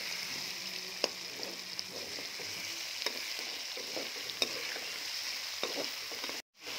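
Potato chunks and meat sizzling in hot oil in a metal pot while a metal ladle stirs them, clinking against the pot a few times. The sound drops out briefly near the end.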